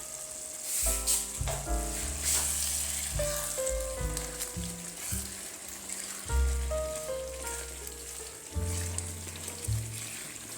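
Background music: a bass line and a stepping melody of short notes over a steady high hiss.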